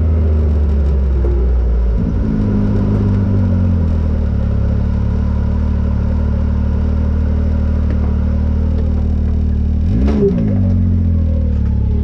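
Can-Am Maverick XRC 1000 side-by-side's V-twin engine running steadily at cruising speed. Its note drops a little about two seconds in, and about ten seconds in it briefly rises and falls.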